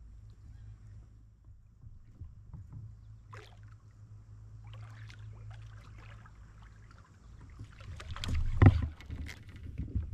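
Topwater popper lure being worked across the surface with small splashes, then a bass striking it: a sudden loud splash about eight and a half seconds in, the loudest sound, as the fish is hooked. A steady low hum runs underneath.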